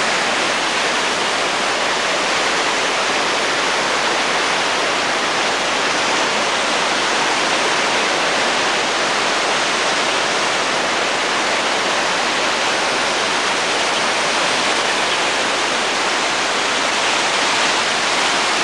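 Steady, loud rush of water, an even hiss with no breaks and no thunder cracks.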